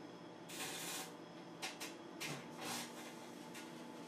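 Microwave oven running with a steady hum. Several short bursts of noise break in, the longest about half a second in, then a cluster of shorter ones around two seconds in. They fit arcing from the metal parts of a floppy disk drive being cooked inside.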